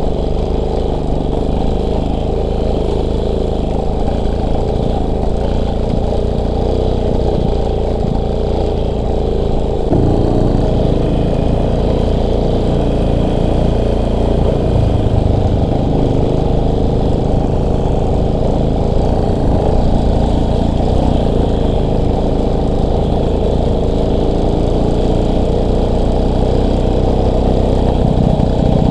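Motorcycle engine running steadily while riding off-road, with a shift in engine note about ten seconds in, as from a gear change or a change in throttle.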